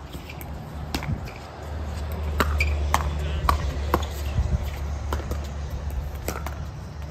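A pickleball rally: a run of sharp pocks as paddles hit the plastic ball back and forth, about eight in all, several coming half a second apart. A steady low hum runs underneath from about a second and a half in.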